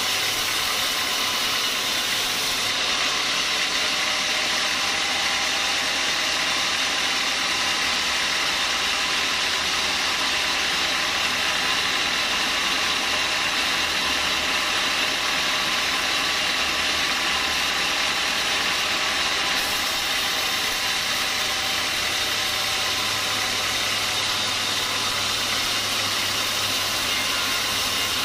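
Band sawmill running with a steady, even noise as its blade saws through a log of hard small-leaf acacia.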